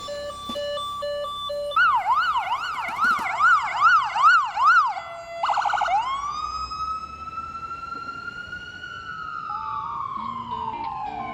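Toy ambulance's electronic siren cycling through its modes. A two-tone pattern gives way to a fast up-and-down yelp, then a short buzzing burst, then a long slow wail that rises and falls away near the end.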